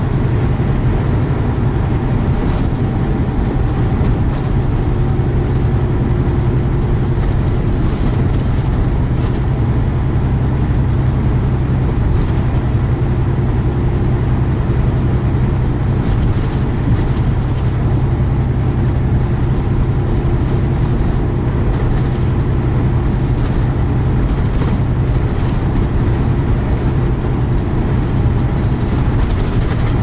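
Steady drone inside a semi truck's cab cruising at highway speed: diesel engine and road noise.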